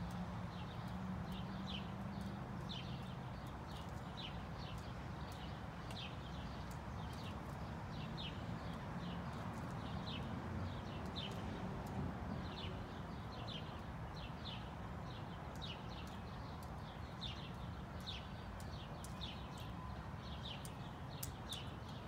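A woodpecker pecking at a peanut shell: irregular sharp taps, about one to three a second, over a steady low rumble.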